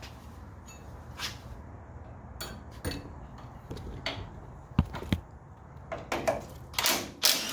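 Wrench and socket clinking and knocking against metal in a series of separate sharp strikes, the loudest near the end, as a seized suspension nut is worked loose.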